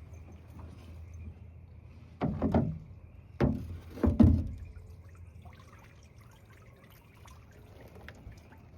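A fish trap hauled up out of the water at a boat's side: a few loud splashes and knocks between about two and four and a half seconds in, then water trickling and dripping off it with light rattles.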